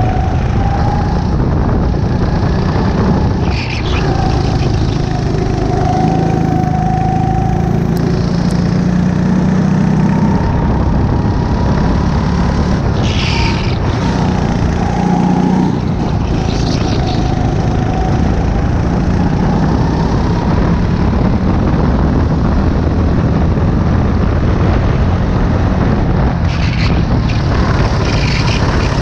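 Racing kart engine running hard on track, its pitch climbing and dropping as the kart accelerates and brakes through the corners. Heavy wind rush is on the microphone, with a few brief bursts in the upper range.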